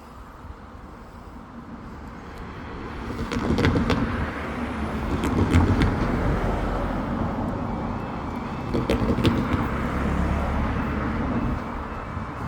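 A train passing over a level crossing: a low rumble builds about three seconds in and stays loud, with a few pairs of clicks as the wheels cross rail joints, then eases off near the end.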